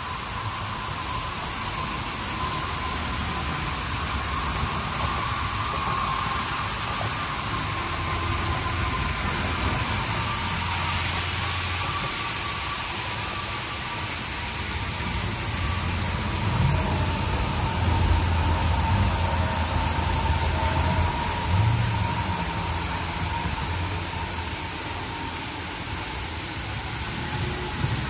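Washworld Razor Edge touchless in-bay car wash running: a steady hiss of water spraying onto the car, over a low rumble that swells and eases and a faint steady whine.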